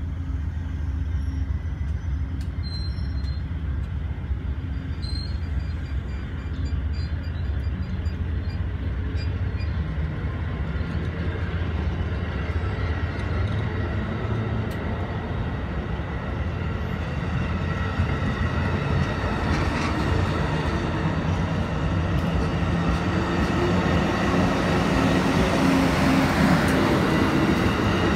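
Amtrak stainless-steel passenger cars rolling past close by: a steady rumble of wheels on rail that grows louder over the last several seconds, with a thin high whine from the wheels coming up near the end.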